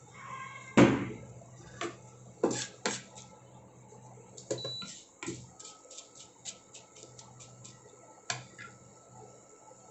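Wooden spatula stirring and knocking in a kadai as curry leaves and cumin fry in hot oil, with a run of quick sharp crackles through the middle. An induction cooktop beeps once, short and high, about halfway through as its power is turned up, over the cooktop's steady hum.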